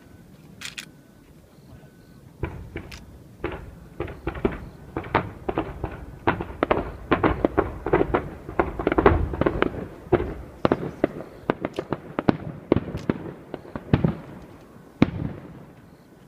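Aerial fireworks shells bursting in quick succession. The bangs start a couple of seconds in, pack into a dense barrage through the middle, then thin out, with one last loud bang near the end.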